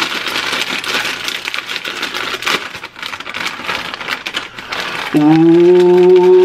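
A foil Takis chip bag crinkling and crackling as it is torn and pulled open. About five seconds in, a man's voice takes over with a long, steady sung note, the loudest sound.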